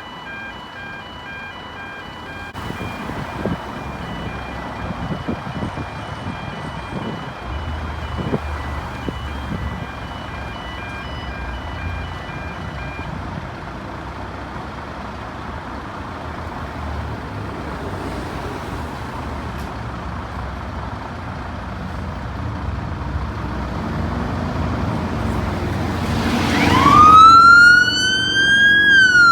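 Fire engines turning out: a diesel engine rumbles under repeated steady beeps for the first half. About 26 s in, a siren winds up in a rising wail and is loudest near the end.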